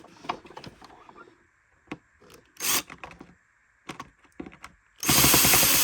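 Cordless drill-driver run in short bursts while unscrewing a screw from the vacuum's plastic base, with clicks and rattles of handling in between. The loudest and longest burst comes near the end, and a short one comes a little before the middle.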